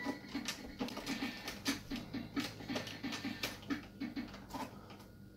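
Rapid, uneven clicking and tapping of a toddler's hands on the plastic keys of a B. Meowsic toy cat keyboard, several taps a second, with hardly any notes sounding.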